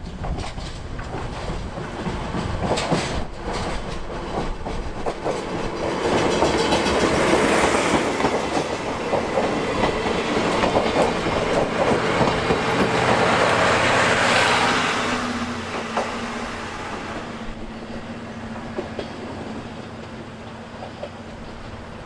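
Diesel-hydraulic DE10 locomotive and 12-series passenger coaches passing close by, wheels clattering over the rail joints. The clatter builds over the first several seconds, is loudest in the middle, then fades as the train moves away.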